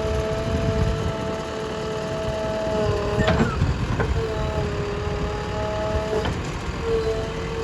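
Heavy diesel machinery running with a steady low rumble, a held whine on two pitches that drops out and comes back, and a few sharp metallic clanks about three and four seconds in.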